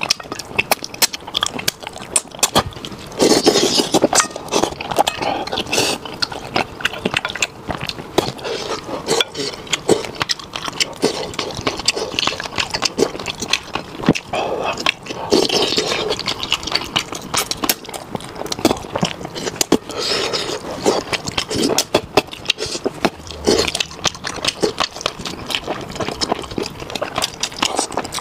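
Close-miked eating sounds of spicy braised soft-shell turtle: wet chewing and sucking on meat and bones, a dense run of mouth clicks with a few louder slurping bursts.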